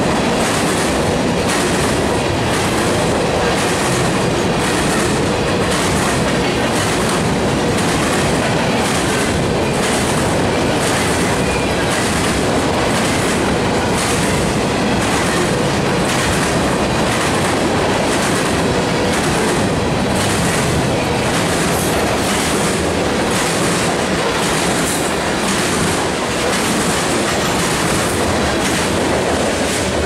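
Empty covered hopper cars of a long freight train rolling past close by: a steady rumbling roll of steel wheels on rail with a regular clickety-clack.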